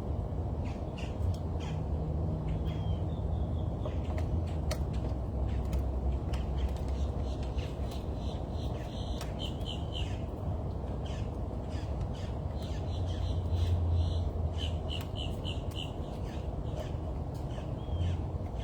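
Birds at a feeder giving short repeated calls, some in quick runs of three or four notes, with scattered light clicks over a steady low rumble.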